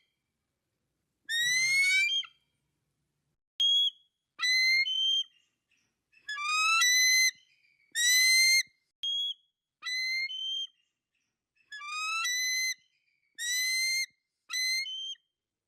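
Eagle calling: a series of about ten high, thin whistled calls, each rising slightly in pitch and lasting up to a second, with short silent gaps between them.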